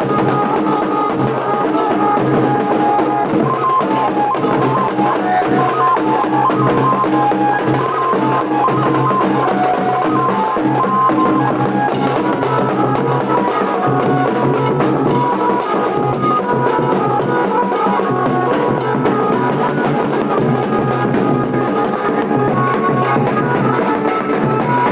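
Nasik dhol band playing: continuous dhol drumming with a melody of short held notes over it.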